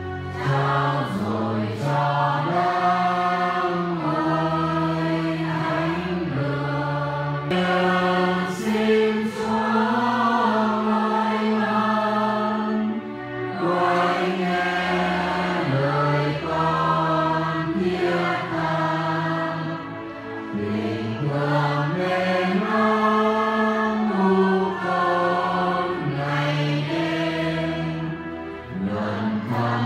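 Church choir singing a slow Vietnamese hymn, voices holding long notes and moving from note to note without pause.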